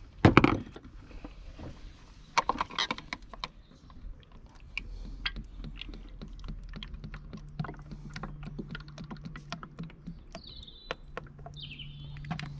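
Engine oil glugging from a plastic canister through a plastic funnel into the engine's oil filler, in irregular gurgles and small plastic knocks, with a louder knock just after the start. A bird chirps twice near the end.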